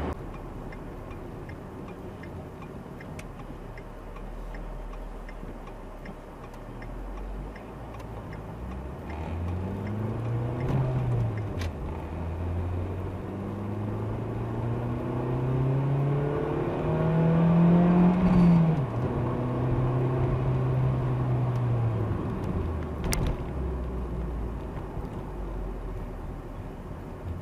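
Steady road noise heard from inside a moving car, then a car engine revving: its pitch climbs, drops briefly, then climbs higher to its loudest peak about two-thirds of the way through before falling away.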